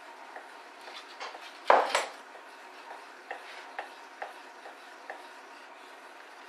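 A spoon stirring melted chocolate and butter in a bowl, scraping and clicking against the bowl, with one louder knock just under two seconds in and lighter taps after it.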